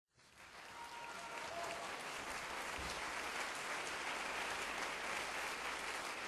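Audience applauding, the clapping swelling in over the first second and then holding steady.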